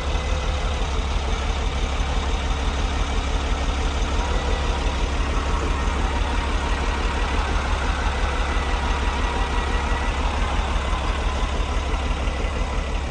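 Vehicle engine idling steadily, a constant low rumble with no change in pitch.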